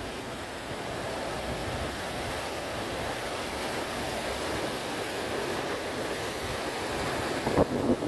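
Sea surf breaking and washing over rocks along a rocky shore, a steady rushing noise, with wind buffeting the microphone and a louder surge near the end.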